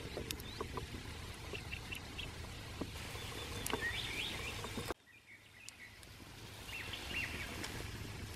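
Light crackling and popping from a cast-iron skillet of onions, ramps and morels frying in butter over wood coals, with small birds chirping in short calls in the background. The sound drops out abruptly about five seconds in, then builds back up.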